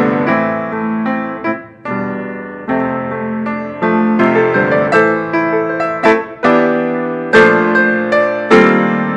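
Solo piano playing a hymn arrangement in full chords, struck notes fading between changes, with a brief softening about two seconds in.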